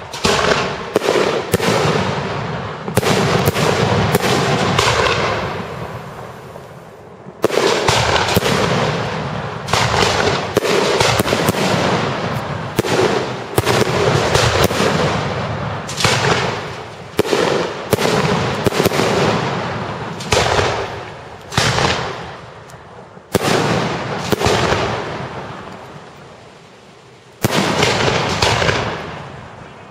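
Professional fireworks display: aerial shells bursting one after another, each sharp bang trailing off over a few seconds, with short lulls around a quarter of the way in and near the end.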